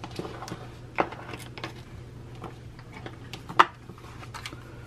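Small hard plastic clicks and taps of doll-sized toy food being packed into a miniature plastic lunchbox, with the lid pressed down on it; two sharper clacks stand out, about a second in and near the end.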